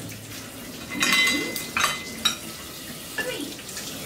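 Dishes and cutlery clinking as they are handled and set down: a clatter about a second in, then two sharp clinks that ring briefly, and a softer knock near the end.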